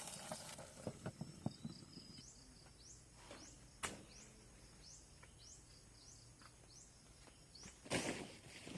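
A bird calling outdoors, a steady series of short, high rising chirps about two a second. A few light knocks come in the first couple of seconds and a brief rustle comes near the end.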